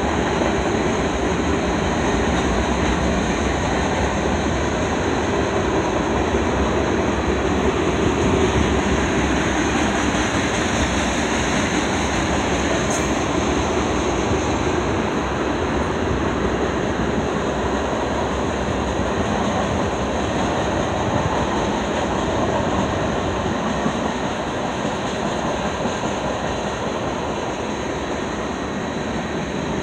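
Freight train cars, covered hoppers and then tank cars, rolling past: a steady rumble and clatter of steel wheels on the rails, easing a little near the end.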